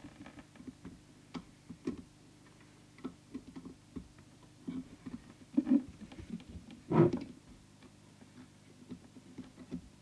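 Scattered small clicks and taps of a plastic trimming tool and fingers handling the metal chassis of a CB radio while tuning its coil cores, with a louder knock about seven seconds in. A low steady hum sits underneath.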